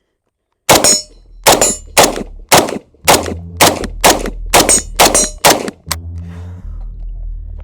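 IWI Tavor 7 bullpup rifle in 7.62 NATO firing a rapid string of about eleven shots, roughly two a second, stopping about six seconds in.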